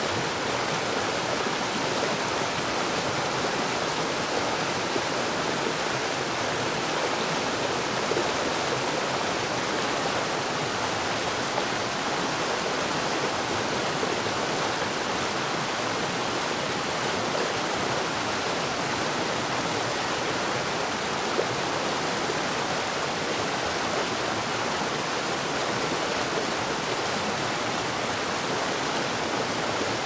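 Steady rush of flowing water from a mountain stream and waterfall, an even hiss that does not change.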